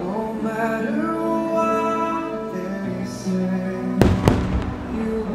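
Fireworks show soundtrack music playing over loudspeakers, with two sharp firework shell bursts about four seconds in, a third of a second apart.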